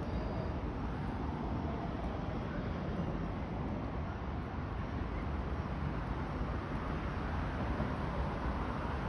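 Steady rumble of car traffic crossing a road bridge, heaviest in the low end, with no single vehicle standing out.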